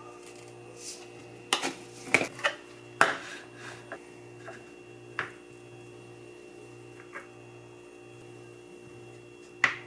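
Plastic lunchbox containers and utensils clicking and knocking on a stone countertop while a plastic rice paddle scoops cooked rice into a plastic lunchbox. There are a handful of sharp clacks, bunched together about a second and a half in and again near the end, over a faint steady hum.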